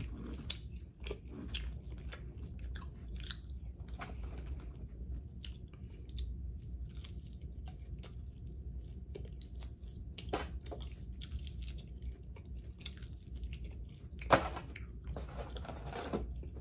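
Close-up chewing and biting of crispy fried chicken wings, with irregular crunches of the breading and one louder click near the end.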